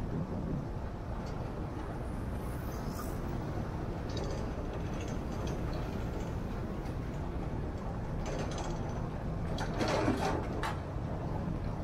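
Steady road and engine rumble of a moving car, with a few faint clicks and a brief louder rattle about ten seconds in.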